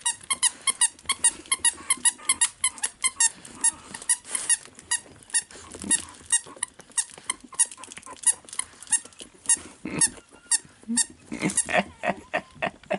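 A litter of young Staffordshire bull terrier puppies squeaking and peeping in quick, high-pitched cries, several a second, thinning out in the second half as they settle down to sleep.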